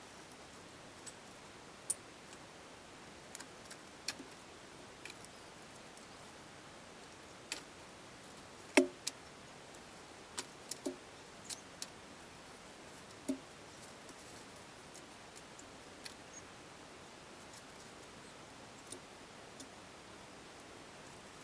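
Scattered sharp metallic clicks and clinks of bike-rack parts and tools being handled during assembly, at irregular intervals with the loudest clink about nine seconds in.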